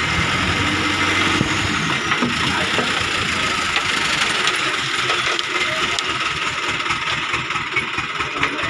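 Diesel engine of a small concrete mixer truck running as the truck drives slowly up and past, its low engine pulses growing plainer in the second half.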